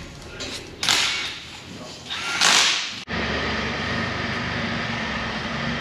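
Two short bursts of loud hissing noise, about a second and a half apart. An abrupt cut follows, and then a steady low mechanical hum.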